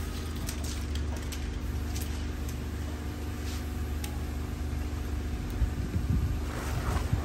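Steady low motor hum with a few light clicks. Near the end come rustling and a couple of thumps as the woven plastic cover of a motorcycle crate is handled.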